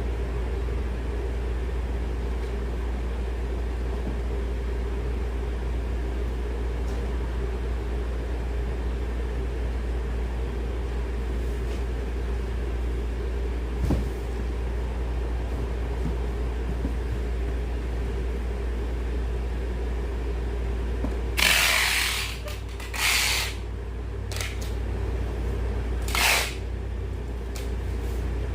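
Steady low hum throughout, with a single knock about halfway, then four short, harsh rasping noises near the end from packing and handling cardboard boxes of squash.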